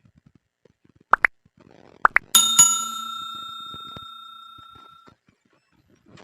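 Two pairs of quick rising chirps, then a bright bell-like ding struck twice that rings out for about three seconds.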